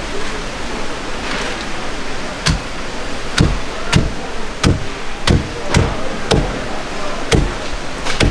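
A heavy knife chopping through a yellowtail's head and bones onto a wooden chopping block: about nine sharp knocks at an uneven pace, roughly every half second to second, starting a couple of seconds in. A steady background hiss runs underneath.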